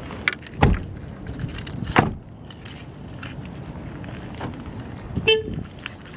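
Two car doors shut with heavy thuds, a little over a second apart, among keys jangling; near the end a short single horn chirp sounds as the car is locked with the key fob.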